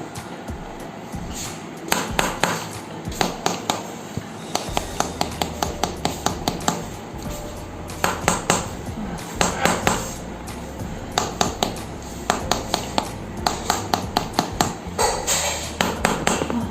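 Bursts of rapid, sharp taps or knocks, several a second, over background music.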